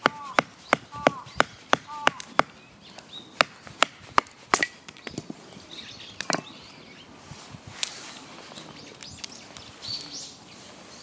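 A run of sharp clicks and snaps, about three a second at first, then scattered and fainter. Crows caw in the first two seconds.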